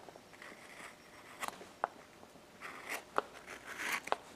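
Hand carving gouge paring small chips from wood: a string of short cutting strokes and sharp clicks. These are sparse at first and closer together in the second half.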